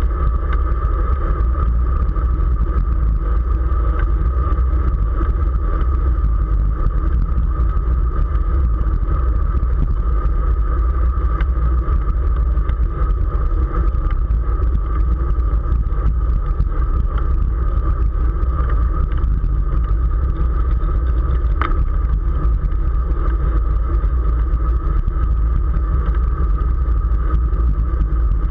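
Wind rushing over the microphone of a camera riding on a racing bicycle in motion, with a steady hum under it and one short click near the end.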